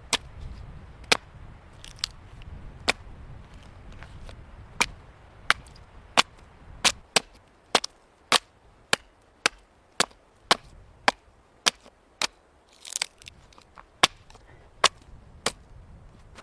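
A series of sharp, dry knocks, a few scattered at first, then coming steadily about one and a half a second, over a low rumble of wind in the first few seconds.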